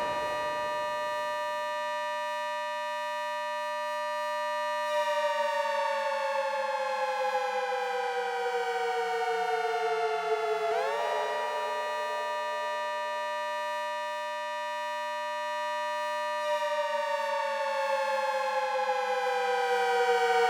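Synthesized ACA Hurricane 130 civil defense siren made from sawtooth waves, with a quick windup and a slow winddown. It holds a steady high tone, slowly winds down from about five seconds in, winds up quickly again about halfway through, holds, and starts winding down once more near the end.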